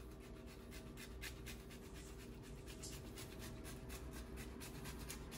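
Parmesan being grated on a hand grater: faint, quick rasping strokes, several a second.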